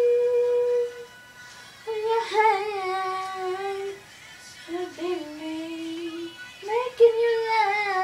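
A girl singing wordless sustained notes: one held note about a second long, then three phrases that slide and waver in pitch.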